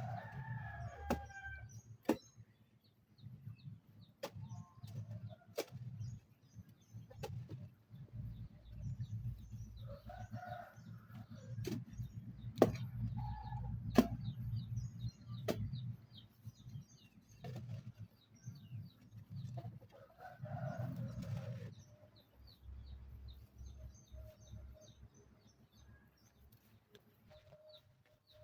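Bangkok chickens clucking now and then in a coop over a steady low rumble, with high chirping throughout and scattered sharp clicks.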